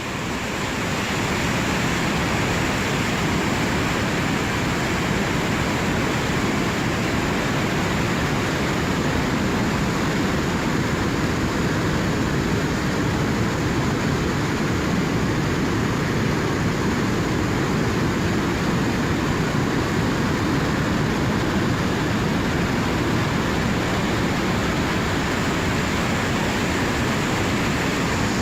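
River at high flow, the water rushing in a steady, even roar; it fades in over the first second or so.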